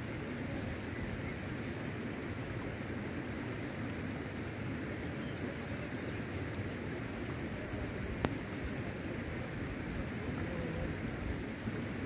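Outdoor background noise: a steady rushing hiss with a constant high-pitched whine over it, and a single sharp click a little after eight seconds in.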